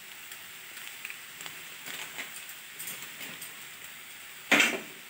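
Soybean chunks and potatoes frying in a steel kadai on a low flame: a faint, steady sizzle with small crackles. A brief, louder noise about four and a half seconds in.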